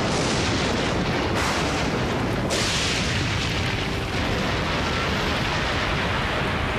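Storm at sea: a steady, loud wash of rain, wind and surging waves, with sudden crashes about a second and a half in and again a second later.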